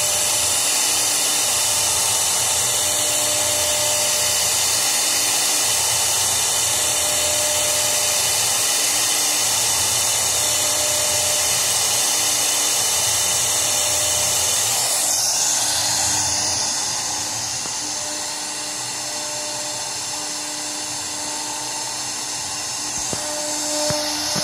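Mini 6090 CNC router spindle running at high speed with a steady high-pitched whine as the cutter engraves a sheet, under a lower tone that keeps starting and stopping; the sound softens a little past halfway.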